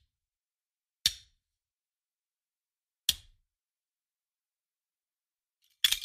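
A handgun magazine thrown down, landing with a short, sharp clack, three separate times: about a second in, about three seconds in, and near the end with a quick double clack as it bounces.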